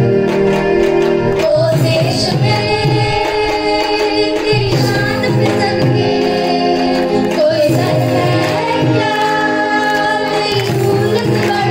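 A song playing: music with singing voices, steady and continuous.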